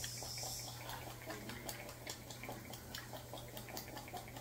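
Dark soy sauce pouring from a bottle into a ceramic bowl: a faint trickle with irregular small drips and clicks.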